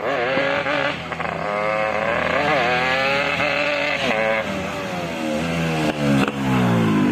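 Yamaha RX-King two-stroke single-cylinder motorcycle engine running through its exhaust, revved so the pitch rises and wavers, drops off after about four seconds, then climbs again near the end.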